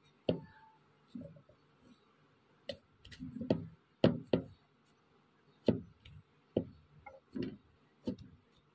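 A spatula working gulab jamun dough of milk powder and flour in a bowl: about a dozen short knocks and scrapes against the bowl, unevenly spaced.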